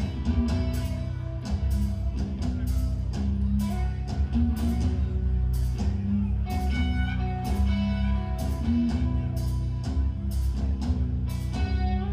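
Live extreme metal band playing at full volume: heavy, low-tuned eight-string guitars and bass in chugging syncopated riffs over a drum kit with regular cymbal and snare hits.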